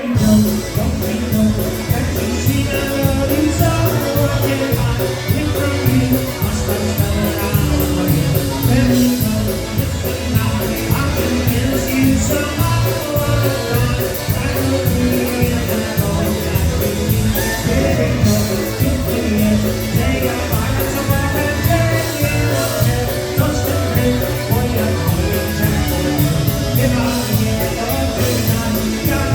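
Live polka band playing with a steady beat, with singing.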